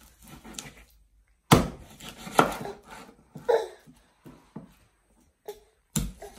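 A large kitchen knife chopping raw chicken on a wooden cutting board: several sharp, irregularly spaced chops with lighter taps between, the loudest about a second and a half in.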